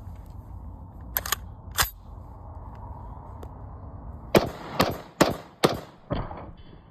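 A gun being test-fired: two or three sharp shots a little over a second in, then a quick string of five shots about 0.4 s apart.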